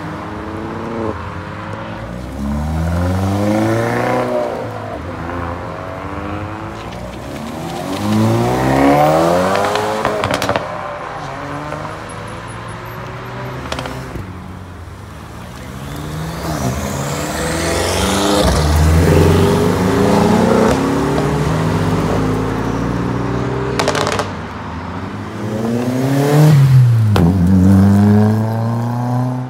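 Several cars accelerating hard away one after another, each engine's pitch climbing and then dropping back at the gear changes. A Hyundai i30 N hatchback pulls away at the start and a Mk2 VW Golf passes near the end.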